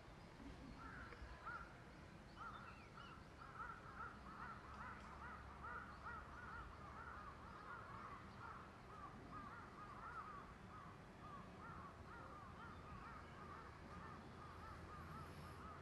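Faint, rapid series of short, repeated chirping calls from an animal, several a second and running on without a break over a low background hum.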